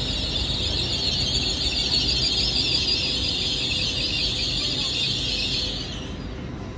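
LNER Azuma train's brakes squealing as it slows into the platform, over a low rumble from the train. The squeal fades away about six seconds in.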